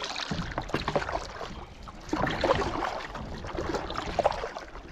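Canoe being paddled through shallow rapids: water rushing and splashing around the hull, with paddle strokes and short knocks, louder about halfway through. Wind buffets the microphone.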